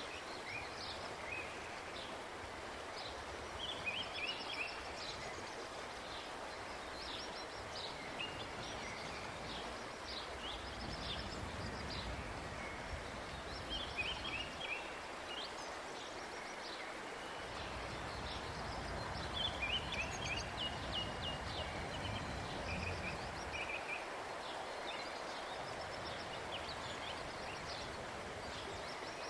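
Small birds chirping in repeated short phrases over a steady rushing background noise. A low rumble swells and fades twice in the middle.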